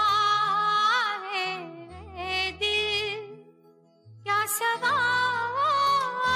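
Bollywood film song in a jhankar remix: a wavering melody over deep, heavy bass notes. The music drops out for about a second a little past the middle, then comes back in.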